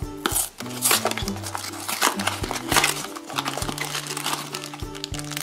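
A small cardboard blind box being torn open by hand, with irregular sharp rips and its paper and plastic wrapping crinkling. Background music plays under it.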